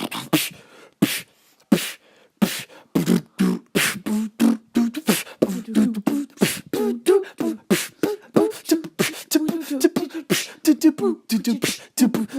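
A person beatboxing with the mouth, a rapid run of clicks and voiced 'boom' and 'ba-dum' strokes; a few sparse hits in the first two seconds, then a steady fast stream.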